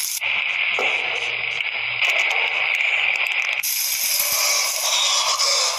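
Steady hissing noise. For about the first three and a half seconds it is thin and narrow like radio static, then it opens out into a fuller hiss.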